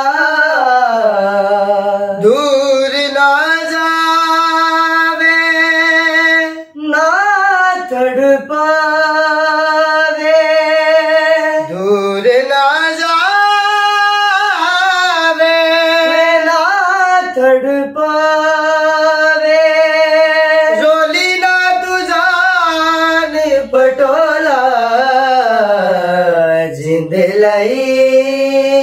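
Two men singing unaccompanied, without clear words: long held notes and ornamented runs that slide up and down, in the style of Punjabi folk and qawwali vocalising.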